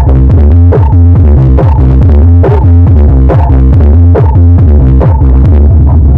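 Electronic dance music with a steady beat and heavy bass, played loud through a 15-inch Padon woofer in a fiberfill-lined speaker box as a sound test.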